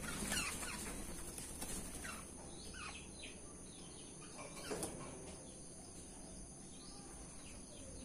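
Black-naped orioles in an aviary giving several short calls, each sliding down in pitch, loudest in the first two seconds and again about five seconds in, with a brief flutter of wings at the start. The keeper takes the oriole to be in breeding condition.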